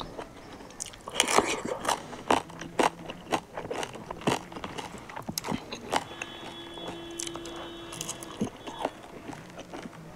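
Close-miked eating sounds: a person biting and chewing pork and rice, heard as an irregular run of sharp clicks and smacks.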